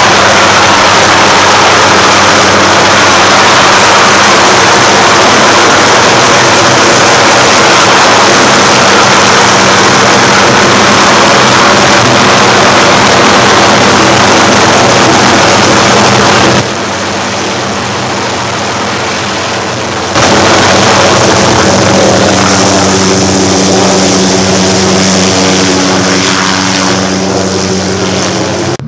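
Small helicopter hovering close overhead: loud, steady rotor and turbine noise. The level drops for a few seconds about two-thirds of the way in, then returns and eases off near the end.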